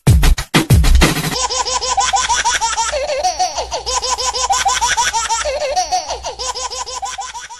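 Music with a heavy bass beat for about a second, then a long, steady run of quick, high-pitched laughter.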